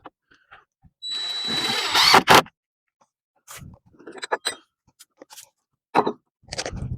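Power drill running for about a second and a half with a steady high whine, driving a screw into the wooden stand and ending in two sharp knocks, followed by scattered knocks and clatter of handling.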